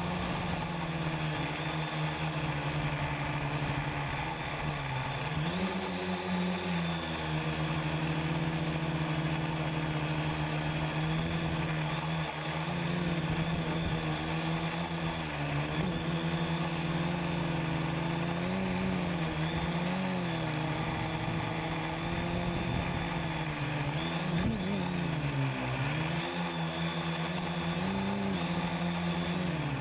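Quadcopter's electric motors and propellers whirring, heard from the craft's own onboard camera, a steady hum over a broad hiss. The pitch dips and rises several times as the throttle changes, most clearly about five seconds in and again near the end.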